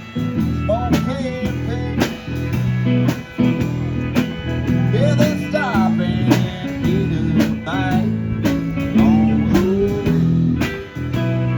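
Band playing an instrumental passage of a country song: a guitar lead with bent notes over bass and chords, with drums keeping a steady beat.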